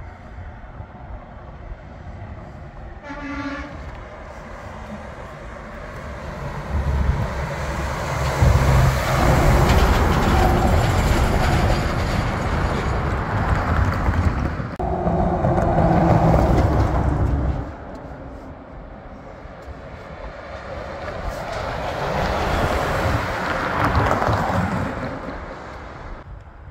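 Heavy semi-trucks coming down a steep mountain grade on their engine brakes, a loud low staccato engine sound that builds from about seven seconds in and drops off sharply near seventeen seconds. A brief horn toot sounds about three seconds in, and another large vehicle passes with a softer swell near the end.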